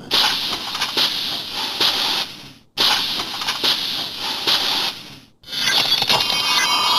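Steam Blade weapon sound effect: three long blasts of hissing steam, one after another, each starting sharply and fading away. The last blast picks up a faint ringing tone near its end.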